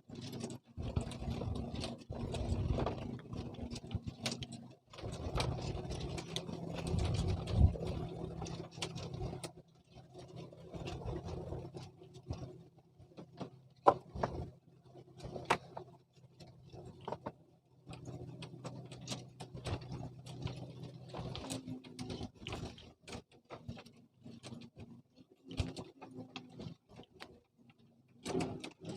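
Steady low motor hum, with many scattered knocks and clicks over it.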